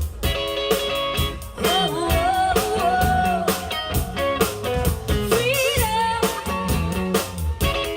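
Live band playing a rock song: electric guitar and drums with a sung vocal line over them.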